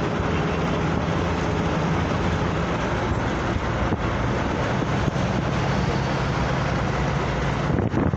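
Steady road noise from a vehicle moving along a highway: continuous tyre and wind rush with a low engine drone.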